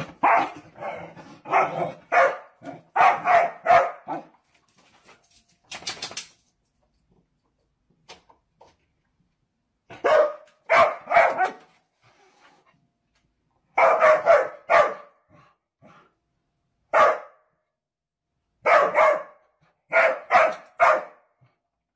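A dog barking in runs of several short, sharp barks, with pauses of a few seconds between the runs.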